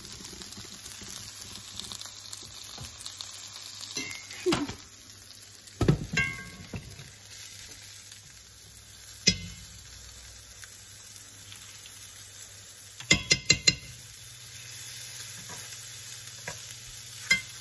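Breaded cusk fillets sizzling steadily in oil in a cast-iron skillet. A metal spatula and fork scrape and clink against the pan now and then, including a quick run of four taps about three-quarters of the way in. The sizzle grows a little louder near the end.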